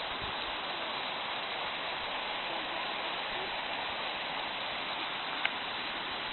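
Waterfall: a steady rush of falling water, even and unbroken, with a single brief click about five and a half seconds in.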